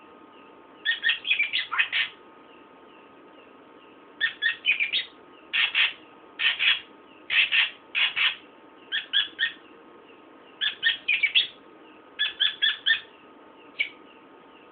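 A caged srikantil songbird singing in short bursts of rapid, high chirping notes, about ten phrases of roughly a second each with brief pauses between.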